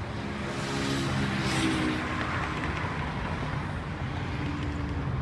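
A motor vehicle's engine running outdoors with steady background noise, and a brief swell of hiss about a second and a half in.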